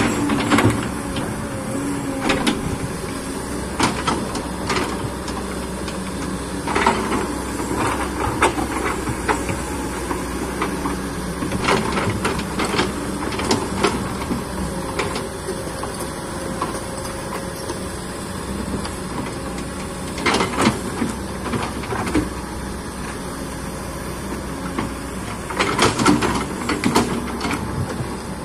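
Excavator's diesel engine running steadily under working load, with knocks and scrapes as the bucket works against rock and soil; the loudest clusters of knocks come about two-thirds through and again near the end.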